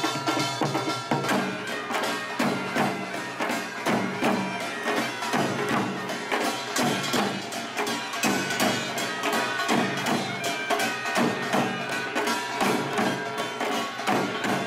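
Korean pungmul folk band playing: a fast, dense beat of drums and small gongs over held, pipe-like tones.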